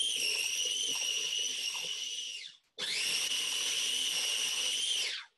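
Small electric blender's motor whining at high speed as it blends strawberries and coconut milk. It runs, spins down about halfway through, starts again a moment later and spins down once more near the end, the whine falling in pitch each time it stops.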